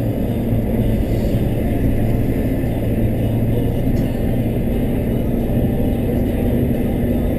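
Steady low rumble of a car driving, with a faint low engine hum underneath.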